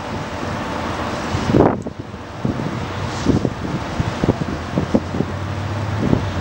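Wind buffeting the microphone in irregular low thumps, with one stronger gust just under two seconds in, over a steady hiss of distant city traffic.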